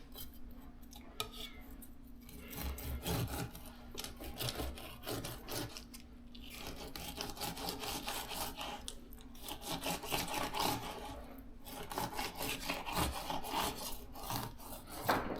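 A knife sawing and scraping through a ladyfish fillet on a cutting board in repeated, uneven strokes, cutting against the fish's many small bones.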